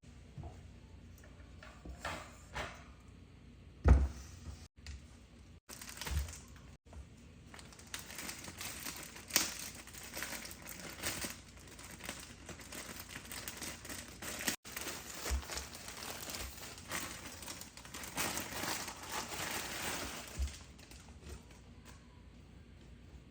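Crinkling and rustling, like handled packaging, densest from about eight to twenty seconds in, with a single sharp thump about four seconds in.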